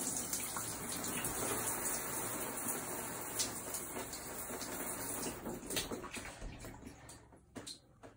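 A shower running behind a shower curtain: an even hiss of water spray that fades away in the last couple of seconds, with a few faint knocks near the end.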